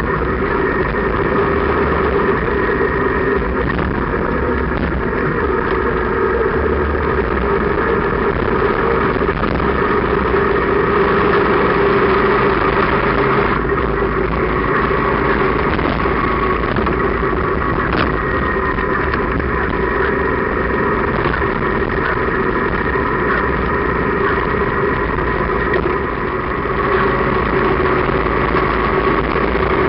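Motorcycle engine running steadily at road speed, heard from the open sidecar, with wind noise on the microphone.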